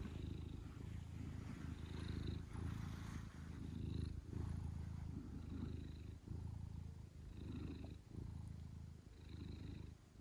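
An 18-year-old domestic cat purring close to the microphone: a steady low rumble that breaks off briefly every second or two as she breathes.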